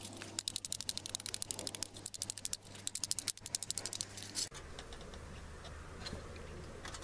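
Rapid run of light taps on an aluminium beer can as a knife point is knocked through it with a piece of wood to punch air-ventilation holes. The tapping stops suddenly about four and a half seconds in, leaving only a few faint clicks.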